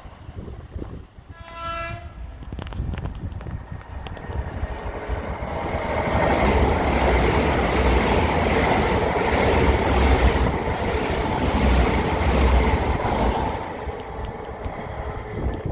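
A train horn sounds once, a short single note, then a train passes close by. The running noise of the train and its wheels on the rails builds up and stays loud for several seconds before easing off near the end.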